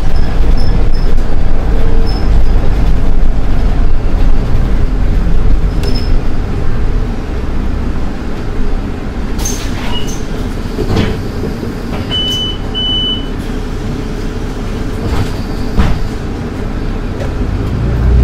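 Solaris Urbino 12 IV city bus running on the road, a steady low rumble that eases off a little about halfway. Two short high beeps come about twelve seconds in, with a few clicks and knocks.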